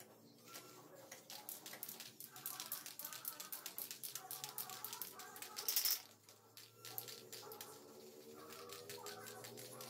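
Aerosol spray paint can spraying black paint onto a steel hoe blade, with hissing bursts and quick rattling clicks through the first half and the loudest hiss about six seconds in.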